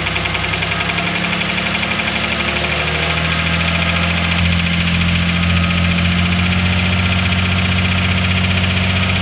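Dodge Ram pickup engine running steadily with a fast, even knocking: the engine knock the owner is showing.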